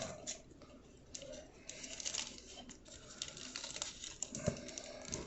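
Plastic wrapper of a trading-card pack crinkling and tearing as the pack is opened, with soft scattered rustles and clicks.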